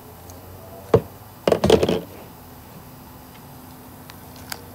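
A meat cleaver knocking against a round wooden chopping block as it chops through a chicken carcass. There is one sharp knock about a second in, then a quick cluster of knocks half a second later.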